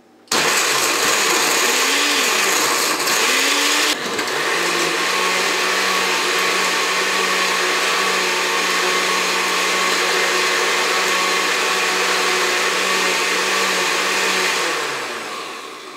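Countertop blender crushing ice with mango and milk. It starts abruptly and runs loud and uneven for about four seconds while the ice chunks break up. It then settles into a steady whir and winds down near the end, falling in pitch as the motor spins down.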